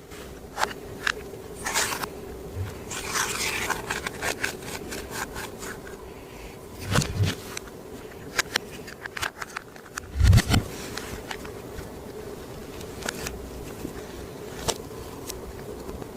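Clear slime being worked by hand, giving off irregular sticky clicks, pops and crackles, with two heavier low squelches near the middle. A faint steady hum runs underneath.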